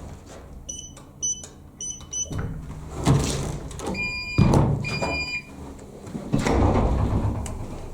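Electronic beeps: three short, high beeps in quick succession about a second in, then two longer, lower beeps a few seconds later. Between and after them come bursts of rustling, knocking noise.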